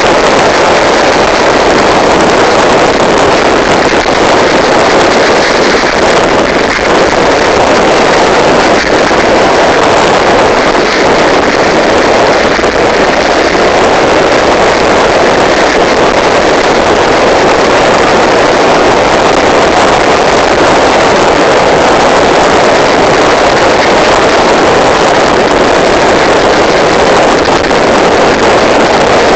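Loud, steady rushing noise of a car being driven, road and wind noise heard from inside the cabin.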